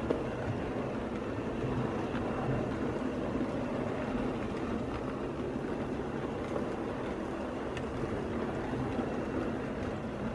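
OO gauge model train of Pullman coaches running along the track, a steady rumble of wheels on the rails with a few faint ticks.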